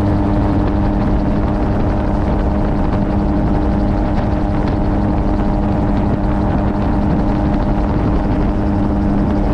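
Steady in-flight drone of an MTO Sport open-cockpit gyrocopter: its engine and pusher propeller running at an even cruise setting, with wind rushing over the open cockpit.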